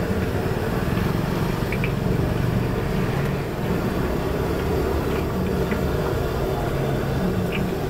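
Battered tempeh deep-frying in a wide steel wok of hot oil: a steady sizzle over a continuous low rumble, with a few light clicks of metal tongs against the pan.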